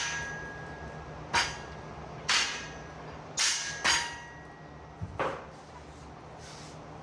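Hammer blows on a powder-coated steel link arm of a bolt-together pit lift, about five strikes spaced roughly a second apart, some leaving a brief metallic ring. The arm is being driven onto its mount because the powder coat makes the fit tight.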